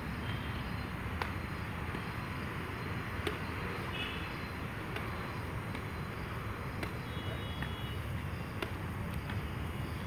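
Badminton rackets hitting a shuttlecock in a rally: sharp clicks every second or two over a steady low background rumble.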